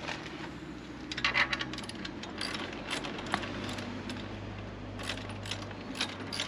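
Light metallic clinks and taps from exhaust parts and fittings being handled and lined up during an aftermarket exhaust install, with a quick cluster about a second in and scattered single clinks after.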